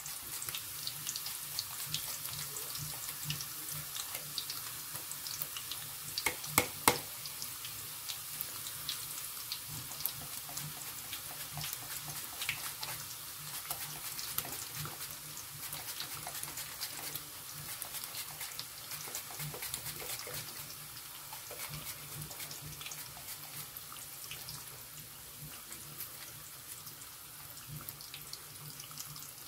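Raw plantain slices deep-frying in hot oil, a steady sizzle full of fine crackles. A couple of sharp knocks stand out about six to seven seconds in.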